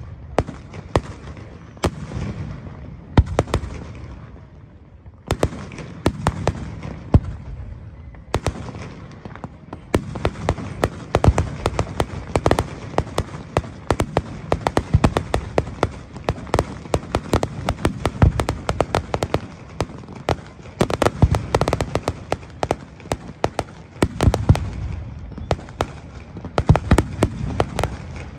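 Fireworks display: aerial shells bursting and crackling in a rapid string of bangs, sparser at first and becoming a dense, nearly continuous barrage about a third of the way in.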